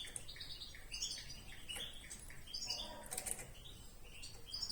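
Small birds giving rapid, repeated short chirps, with a brief flurry of wing flapping about three seconds in.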